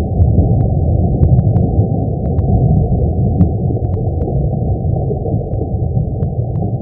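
The sun's sound made audible: recorded solar signals turned into audio, heard as a dense, deep, steady rumble with faint scattered clicks.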